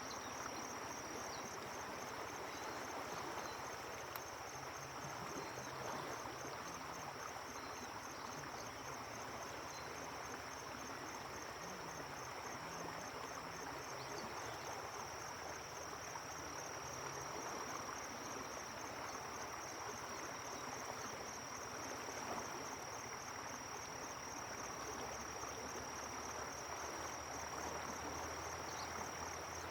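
A steady, high-pitched insect trill, fast and evenly pulsed, over the continuous rush of flowing river water.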